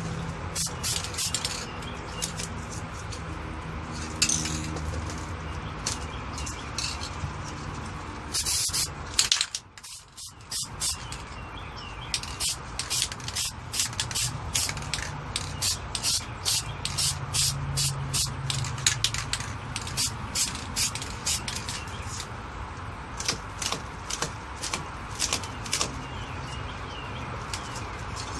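Aerosol spray paint can hissing in many short bursts, with one longer spray about nine seconds in and quicker, closer-spaced spurts through the second half.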